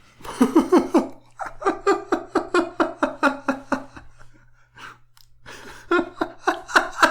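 People laughing in three bouts of rapid, evenly paced "ha-ha" pulses, with a short pause in the middle.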